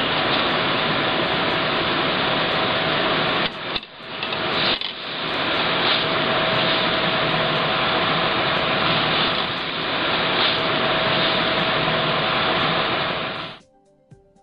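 Steady loud hiss of fabrication-shop background noise with a faint steady tone in it; it dips briefly twice around four and five seconds in and cuts off suddenly near the end.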